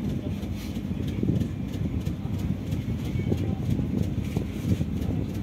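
Steady low hum of a docked ferry's machinery, heard in the wheelhouse, with a few light knocks.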